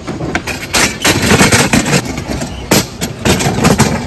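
Hard plastic stools and round plastic tabletops being handled and set down, making a rapid, irregular clatter of sharp knocks.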